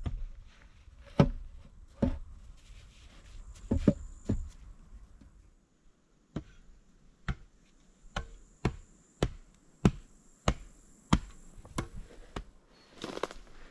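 Sharp knocks and chops of hand tools striking wood, as in log-cabin building: a few heavy blows first, then a steady run of strikes a little under two a second, and a brief scraping rush near the end.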